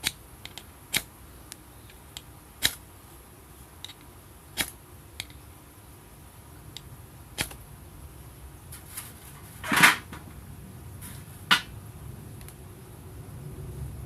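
Irregular sharp clicks and knocks, about a dozen spread out, with one longer, louder rattle a little under ten seconds in.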